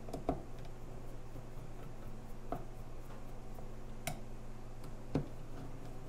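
A hand screwdriver driving screws into the metal gear-housing cover of a Makita 9227C polisher, giving about four scattered sharp clicks over a steady low hum.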